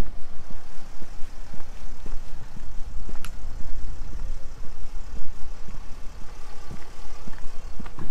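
Street ambience: footsteps on pavement at a walking pace of about two steps a second, over a steady low rumble of motor traffic, with one brief sharp click about three seconds in.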